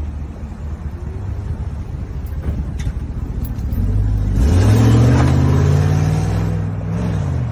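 SUV engine running as it drives close past, then revving up hard about four and a half seconds in as it accelerates away, its pitch climbing and falling back near the end.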